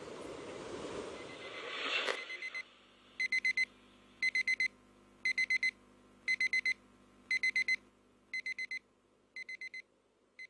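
Digital alarm clock beeping, a high four-beep pattern repeating about once a second, growing quieter near the end. Before it, a rising whoosh ends in a sharp hit about two seconds in.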